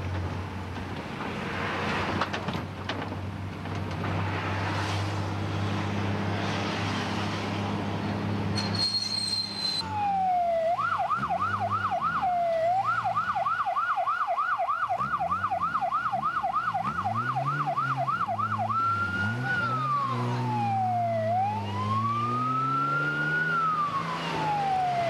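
Police car engine and road noise heard inside the patrol car. About ten seconds in, a police siren starts: a fast yelp of about three sweeps a second. Near the end it changes to a slow wail that rises and falls.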